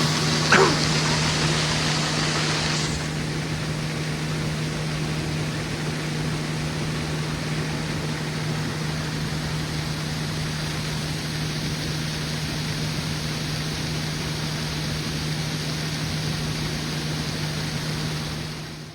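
Heavy diesel engine of harvest machinery running steadily: a constant low drone under a rushing hiss, with a brief falling whistle about half a second in and the hiss easing off about three seconds in.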